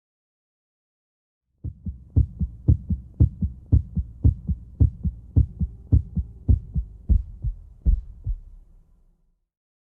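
Human heart sounds as heard on auscultation: a regular, fairly quick lub-dub of the first and second heart sounds, short low thumps in pairs. They start about a second and a half in and fade out near the end.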